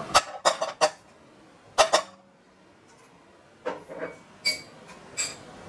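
Loud, sharp knocks and clatter of hard kitchenware against a frying pan and stovetop while butter and oil go into the pan. There are four in the first second, two close together about two seconds in, then after a short lull four more spread through the end.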